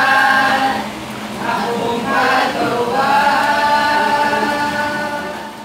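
A mixed group of teenage boys and girls singing a Filipino pop (OPM) song together, unaccompanied. A long note is held from about three seconds in and fades out near the end.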